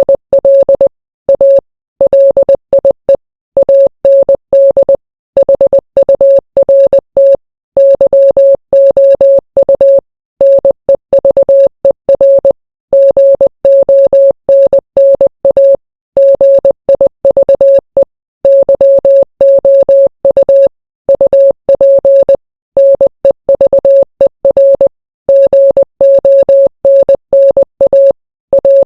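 Morse code sent as a single steady mid-pitched beep, keyed rapidly on and off in short dots and longer dashes, with brief silent gaps between letters and words.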